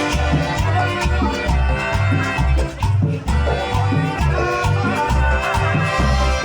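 Live Latin dance band playing a salsa-style tropical number, with a steady repeating bass line, sustained horn or instrument lines and maracas.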